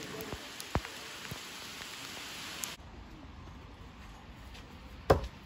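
Steady rain falling, with a few single drops tapping. One sharp knock sounds near the end, the loudest thing heard.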